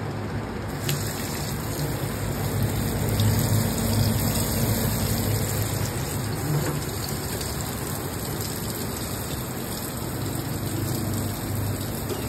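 Kitchen faucet's sprayer running a steady stream of water over cooked ramen noodles in a stainless-steel colander in a stainless-steel sink, rinsing them after draining, with an even hiss and patter of water.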